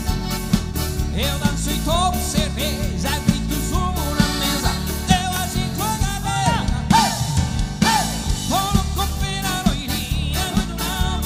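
A man singing with a live band, over a steady drum beat, bass and keyboard.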